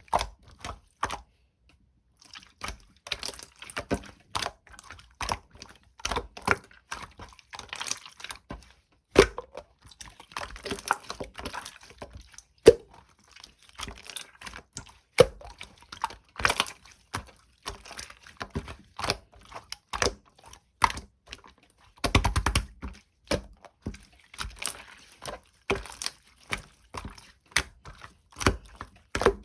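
Hands playing with slime: kneading, poking and pressing it, giving a stream of irregular small clicks, pops and crackles, with a louder, denser stretch of squeezing past the middle.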